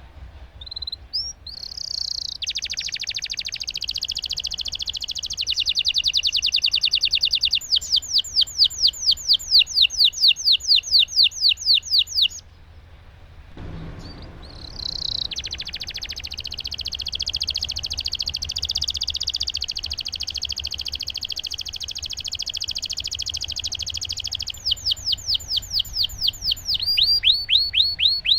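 Domestic canary singing long rolling song: a sustained rapid trill, then a run of quick downward-sweeping whistled notes, a pause of a few seconds, and another long trill giving way to more sweeping notes near the end.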